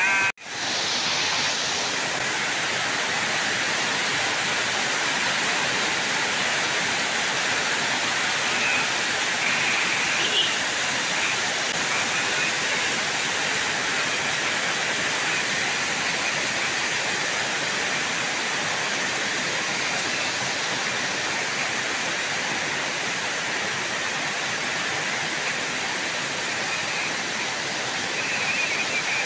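Heavy tropical rain pouring down in a steady, dense hiss, with a brief gap just after the start.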